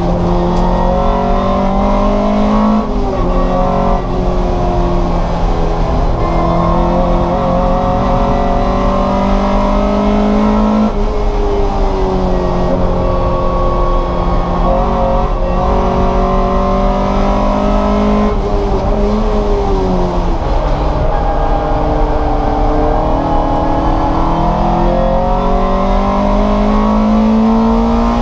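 Race car engine running hard, its pitch climbing under load and dropping abruptly at each gear change, several times over, with one stretch where it falls away as if lifting off and shifting down.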